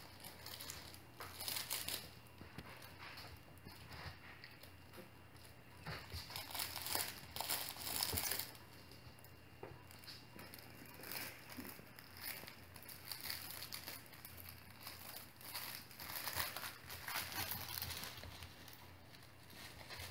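Puppies wrestling on blankets and mouthing plush toys: irregular bouts of crinkling and rustling, busiest about six to eight seconds in and again near sixteen to eighteen seconds.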